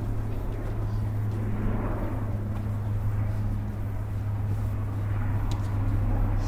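Steady low rumble of outdoor background noise, with a couple of faint sharp knocks near the end.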